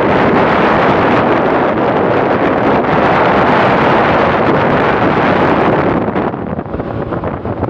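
Loud wind rushing and buffeting over the microphone on a speedboat running at speed, the boat's engine and spray blended into the roar. The rush eases and turns choppier about six seconds in.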